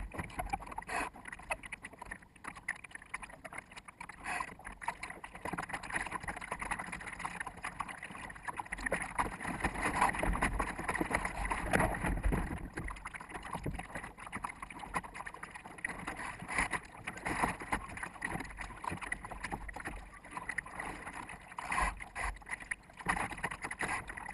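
Wind buffeting the microphone of a camera on a small sailboat's bow, with water washing along the hull in an irregular, gusting rush.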